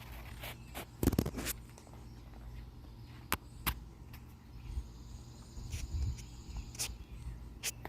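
Outdoor background with a steady low rumble. A quick cluster of sharp clicks and rustles comes about a second in, and a few single sharp clicks follow later.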